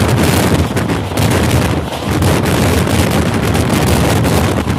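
Heavy wind buffeting the microphone over the steady rumble of a passenger train's wheels on the track, heard from an open coach doorway at speed.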